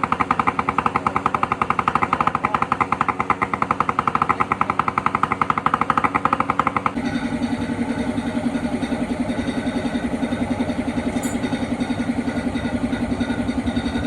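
Yamaha RX-series two-stroke single-cylinder motorcycle engines idling with a rapid, even exhaust beat. About seven seconds in it cuts to a second bike whose beat sounds deeper.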